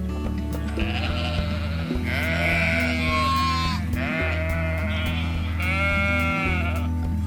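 Sheep bleating: about four long calls in a row, each lasting about a second, with the pitch bending up and down.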